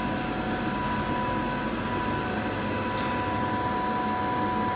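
Steady industrial machinery noise from a metal gas-atomisation plant: a constant dense hiss with several steady whining tones running underneath.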